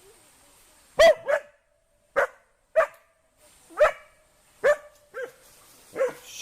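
A dog barking: about eight short, sharp barks at uneven intervals, some in quick pairs.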